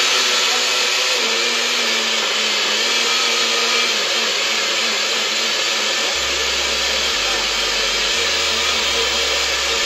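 Personal-size countertop blender running steadily at full speed with a constant motor whine, pureeing chopped herbs, peppers and oil into a smooth green seasoning.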